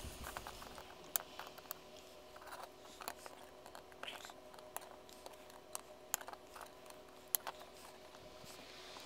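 Flush cutters snipping off the excess wire leads of components soldered to a circuit board: faint, sharp clicks at irregular intervals, with light handling noise.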